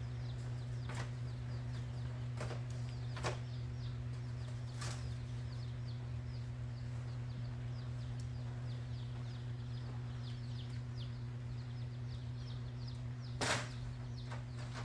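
Many short, faint, high chirps of small birds over a steady low hum, with a few sharp clicks, the loudest about thirteen seconds in.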